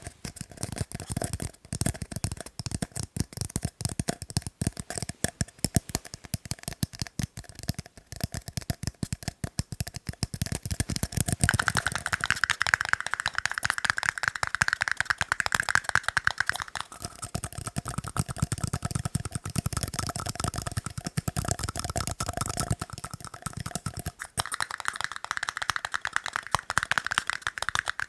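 Fast tapping on tiny cups: a dense, rapid run of clicks. A ringing tone from the cups comes in for a stretch in the middle and again near the end.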